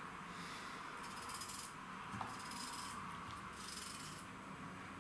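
Kitchen knife slicing a peeled raw potato held in the hand: about four drawn cuts roughly a second apart, each a short scraping swish.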